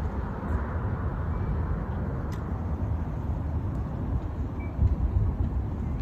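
Outdoor city ambience: a steady, uneven low rumble of wind and distant traffic.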